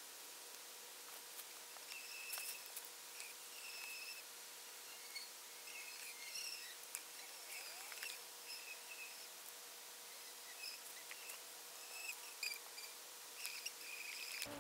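Faint forest ambience: short, high chirps repeating irregularly, with a few light clicks and ticks between them.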